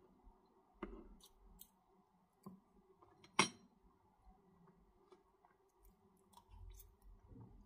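Quiet eating sounds of a close-miked mukbang. A metal fork and spoon click and scrape while saucy ramen noodles are twirled, with one sharp click a little over three seconds in. Near the end a big bite of noodles goes into the mouth with soft wet mouth sounds.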